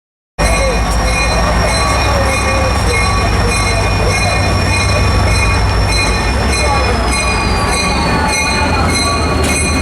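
Passenger train rolling, heard from aboard: a steady low rumble with a high, steady wheel squeal that slides down in pitch about eight seconds in. The sound cuts in after a brief dropout at the start.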